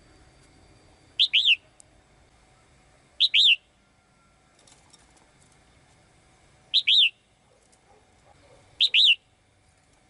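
Female red-whiskered bulbul in a cage giving four short, sharp chirps a couple of seconds apart, each a quick double note.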